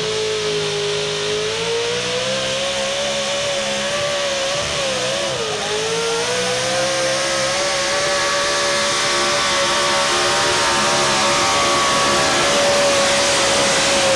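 Super stock 4x4 pulling pickup's engine running at full throttle as it drags the weight sled, holding a steady high pitch. The pitch sags and wavers briefly about five seconds in, then recovers, and the engine gets louder toward the end as the truck nears.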